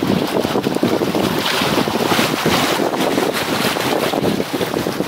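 Wind buffeting the microphone steadily, over small sea waves washing and splashing against rocks.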